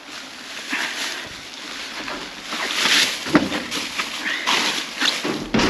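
Plastic trash bags and loose rubbish in a metal dumpster rustling and crinkling as someone shifts them about, with scattered knocks and clunks. The rustling gets louder around the middle and again near the end.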